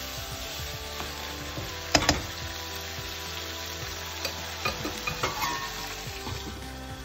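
Liver, heart and kidney curry frying in oil and spices in a non-stick pan, sizzling steadily while a spatula stirs and scrapes through it. A sharp knock comes about two seconds in. A few light clinks follow in the second half, as a metal lid is brought to the pan.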